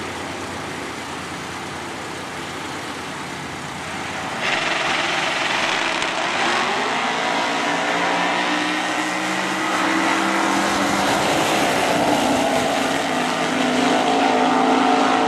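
Two drag-racing cars, one a 1972 AMC Gremlin, running side by side. A steadier engine note jumps suddenly in loudness about four seconds in as both cars go to full throttle. The engines then keep running hard down the strip, their pitch rising and shifting.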